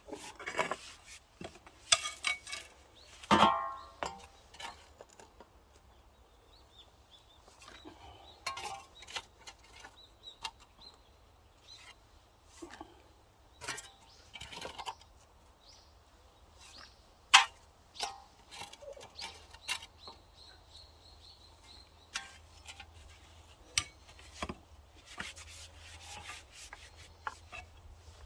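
Irregular knocks and clinks, hard objects being handled, with a short pitched call about three seconds in and a faint steady high tone in the middle stretch.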